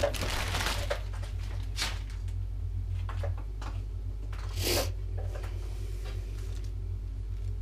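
Plastic-bagged items being handled and set down on a glass desk, with small clicks and one brief crinkle of plastic about four and a half seconds in. A furnace's blower hums steadily underneath.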